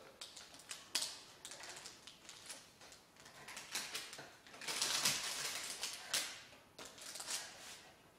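Kitchen knife slicing strips through a baked slab of toasted oats, almonds and dried fruit on baking paper over a wooden board: crisp crunching and scratchy clicks, loudest about five seconds in.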